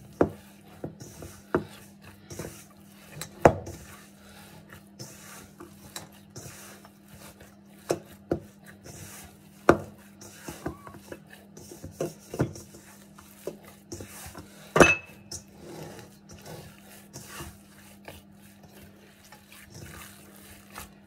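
Hands kneading soft, oily poğaça dough in a stainless steel mixing bowl: squishing and rubbing, with irregular knocks against the bowl. The loudest knock comes about 15 seconds in with a brief metallic ring. A faint steady low hum runs underneath.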